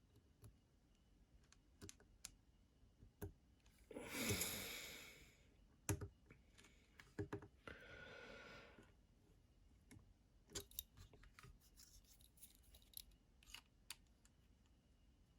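Faint scattered small clicks and taps of a small screwdriver and tiny screws being worked on a folding knife's pocket clip, with two brief rushing noises about four and eight seconds in.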